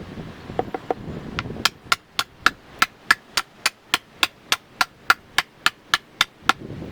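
Hammer blows in a fast, even rhythm, about four a second with a ringing metallic edge, driving rebar through landscape-timber beams to pin a flower-bed border. The blows start about a second and a half in after a few lighter knocks, and stop just before the end.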